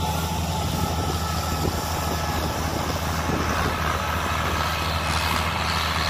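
Diesel engine of rice-harvest field machinery running steadily, a constant low drone with no change in speed.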